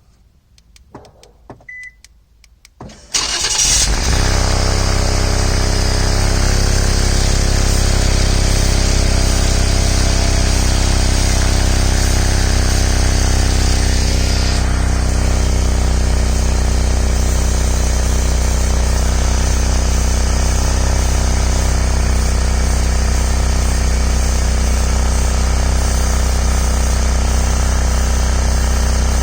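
A Ford/Lincoln car engine started from cold about three seconds in, after a few faint clicks, then running steadily at idle; the upper hiss eases about halfway through. Exhaust escapes through a hole in the side of the resonator, which the owner takes for an exhaust leak, loudest when the car is cold.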